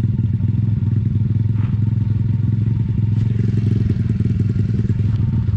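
Pit bike's single-cylinder four-stroke engine idling steadily at an even pitch, close to the microphone.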